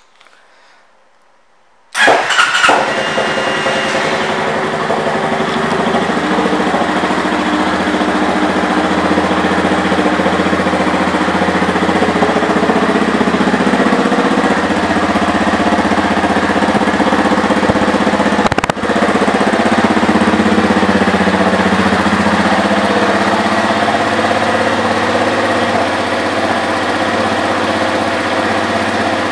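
Honda CRF230M's air-cooled single-cylinder four-stroke engine starting about two seconds in, then idling steadily.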